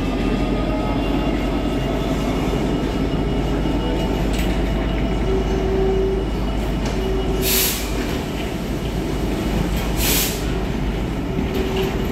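Freight train of covered wagons rolling past behind a Class 66 diesel locomotive, a steady rumble and rattle of wheels on track. Short wheel squeals come three times, and two brief hissy bursts come near the middle.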